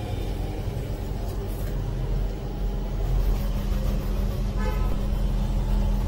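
Street traffic rumbling steadily, with a short vehicle horn toot about four and a half seconds in.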